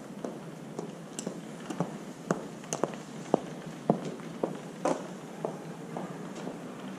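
A series of about a dozen irregular, sharp clicks and knocks over a low steady background hiss, most of them in the middle of the stretch.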